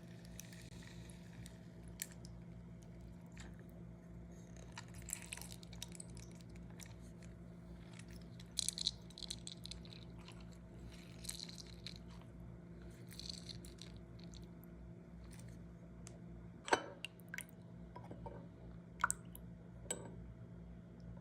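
Soft squishing and scattered sharp clicks from hand preparation of a honey, lemon and salt mixture, with a few clicks standing out near the end, over a steady low hum.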